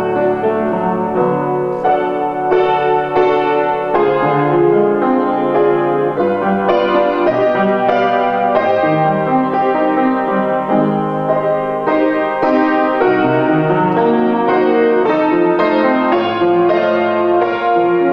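Upright piano played solo: a continuous flowing passage with notes ringing over one another at a steady loudness.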